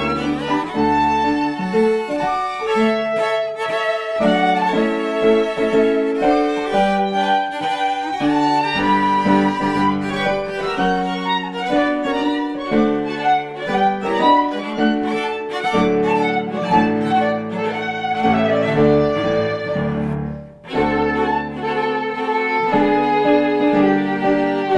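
Classical chamber music led by violin, with lower strings or piano beneath, playing a quick succession of notes. The playing breaks off briefly about twenty seconds in, then resumes.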